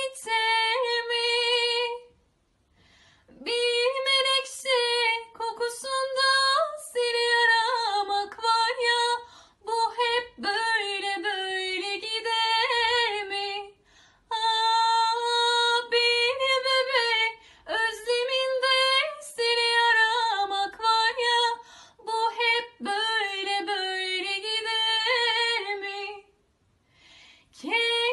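A woman singing unaccompanied, in phrases of held notes that waver in pitch. She pauses briefly about two seconds in and again near the end.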